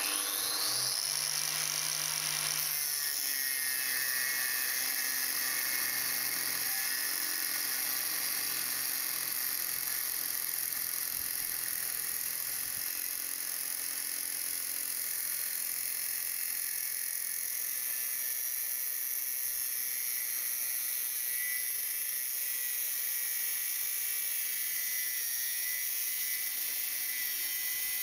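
Angle grinder in a cut-off stand spinning up with a rising whine, then cutting through a metal bar with a Kronenflex abrasive cut-off disc: a steady, high grinding whine that does not let up.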